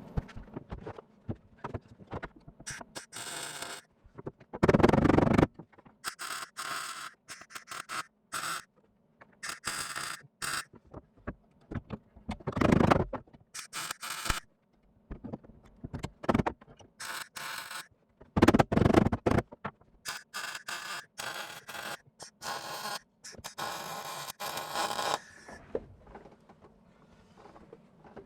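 Welding on car sheet-metal body panels: a run of short crackling welds, each under a second, with quiet gaps between them. A few longer, louder welds are laid about five, thirteen and nineteen seconds in.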